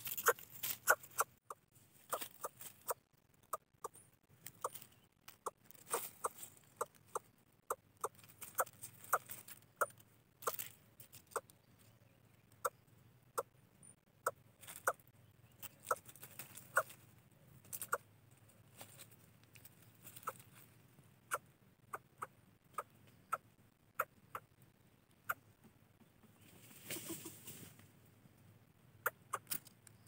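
A fallen nestling bird giving short, sharp cheeps over and over, irregularly, about two a second. A brief rustling noise comes near the end.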